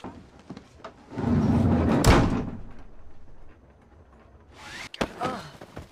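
A door rumbles along for about a second and then slams shut with a single loud bang that rings out and fades.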